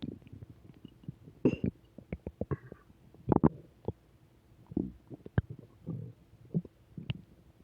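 A person's stomach growling and gurgling in irregular short spells, with small popping clicks between them; the loudest gurgles come about one and a half and three and a half seconds in.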